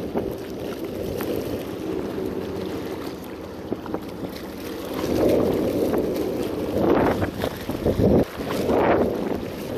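Wind buffeting the microphone, rising in gusts about five seconds in and again near the end.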